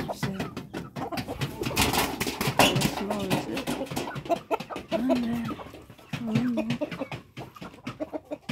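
Backyard chickens calling, with two low, level cooing calls about five and six seconds in, over scattered clicks and rustling.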